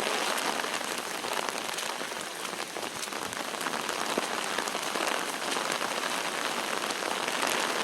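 Steady heavy rain falling, with a dense patter of close raindrop hits.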